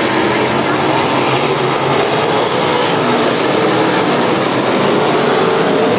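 A field of winged sprint cars running together on the dirt oval, their 410 V8 engines blending into a loud, steady din.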